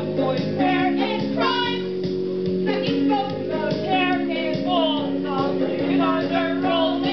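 Music: a high-pitched voice singing a melody over steady held chords.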